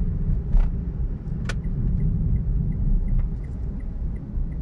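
Car-cabin road and engine rumble while driving at steady speed. A sharp click comes about a second and a half in, and after it a light, even ticking about three times a second.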